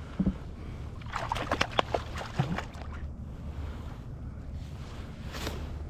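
A quick run of small clicks and knocks from handling gear on a kayak, over a steady low rumble.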